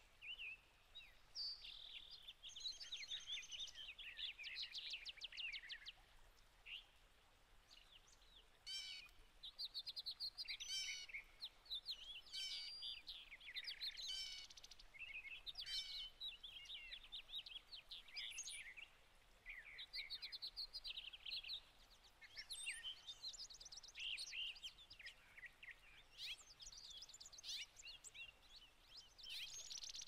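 Songbirds chirping and calling: a busy mix of short chirps, whistled notes and quick rattling trills, easing off briefly about seven seconds in.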